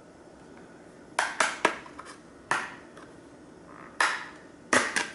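The snap-on plastic back cover of a Samsung Galaxy Note 4 being prised off. Its clips unlatch in a series of sharp plastic clicks and snaps, about seven in all, starting about a second in.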